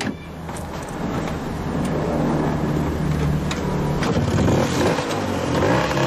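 Bajaj auto rickshaw's two-stroke engine running and revving as it pulls away. It gets louder about a second in, and its pitch rises and falls near the end.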